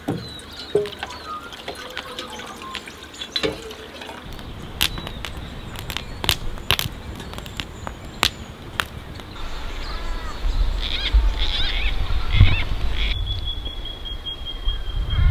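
Water running from a jerry can's tap, with a series of sharp metal clicks and knocks. Birds chirp near the end over a low rumble.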